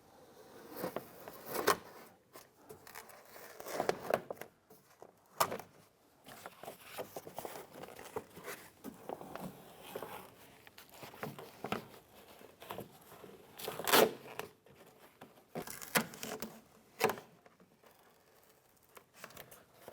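Plastic water shield being peeled slowly off a Ford Ranger's inner door: irregular crackling and rustling as the sheet pulls away from the door, with several sharper snaps, the loudest about two-thirds of the way through.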